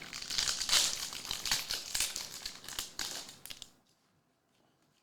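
Trading card pack wrapper crinkling as it is torn open and handled, a dense run of crackles that stops abruptly about three and a half seconds in.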